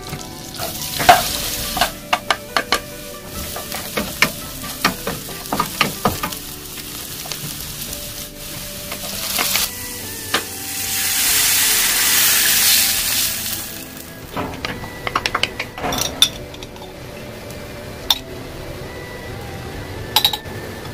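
Aromatics sizzling in butter in a nonstick frying pan, with a wooden spatula knocking against the pan in quick clusters of clacks as they are stirred. Near the middle a louder sizzle swells for a few seconds, then the clacking stirs resume.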